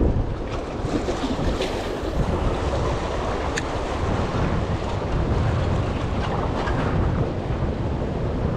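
Wind rumbling on the microphone over sea water washing against shoreline rocks, steady throughout, with a couple of faint clicks.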